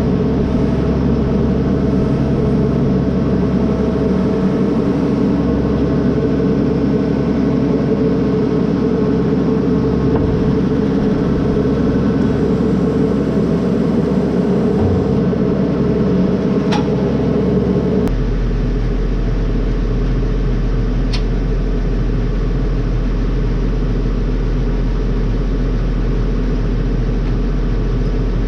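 A vehicle engine runs steadily under load. About eighteen seconds in the sound changes abruptly: the higher hum drops away and a deep, steady drone takes over.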